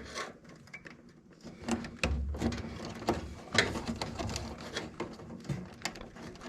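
Hand-work noises as wire connectors are pushed onto furnace terminals: scattered small clicks and light knocks, with low rumbling handling noise from about two seconds in.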